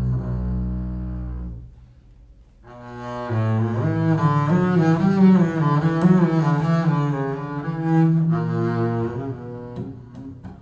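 Double bass played with a bow. A low held note fades out about a second and a half in, and after a short pause a longer improvised passage of shifting bowed notes follows, dying away near the end.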